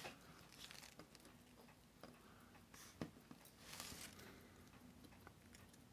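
Near silence, with a few faint, sparse clicks of steel tweezers touching small parts of a watch movement.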